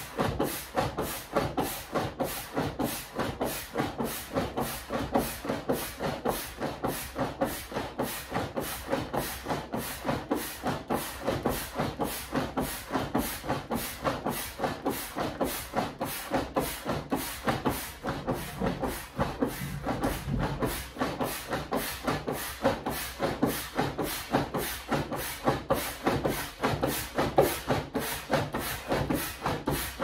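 Foot-operated bellows air pump being stepped on in quick, even strokes, about two a second, each stroke a puff of air pushed through the hose into an orange space hopper as it is inflated.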